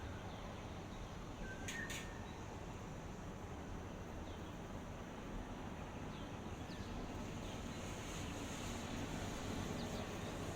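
Steady outdoor ambient noise, a low rumble and hiss, with a few faint bird chirps. There is a brief sharper sound about two seconds in.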